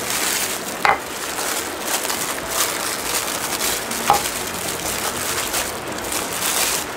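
Thin clear plastic wrapping crinkling and rustling as it is pulled off and crumpled by hand, with a couple of sharper crackles, about a second in and about four seconds in.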